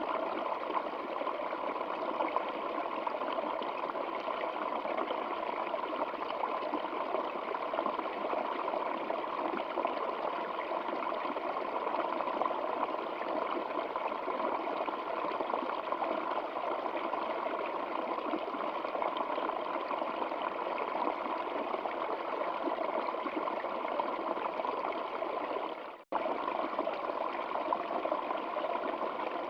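Steady rushing water of a flowing stream. Near the end it dips to silence for a moment and cuts straight back in, like a loop seam.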